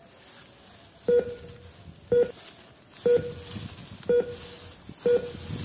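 Toy treasure-finder wand beeping: five short electronic beeps, about one a second, each with a sharp start and a brief fading tail.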